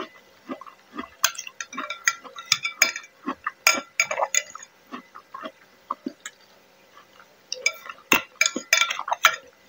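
A spoon clinking against a bowl of broth: a run of light clinks, a lull of a couple of seconds, then more clinks near the end.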